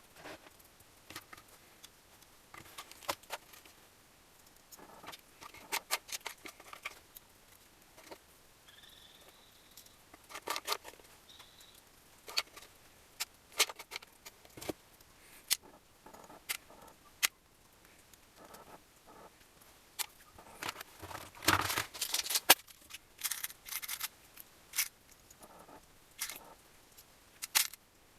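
Scattered clicks, taps and light metallic clinks of tools and small engine parts being handled during engine assembly, at irregular intervals, with a denser, louder cluster of knocks and rattles about three quarters of the way through.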